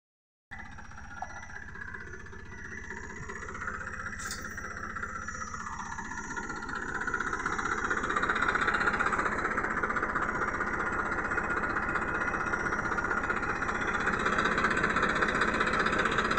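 Tractor's diesel engine idling steadily, growing louder over the first several seconds and then holding level.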